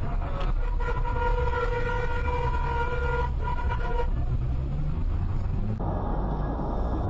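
A vehicle horn sounds one long, steady blast of about two and a half seconds over the low rumble of a car driving on a highway. Near the end the road noise changes abruptly.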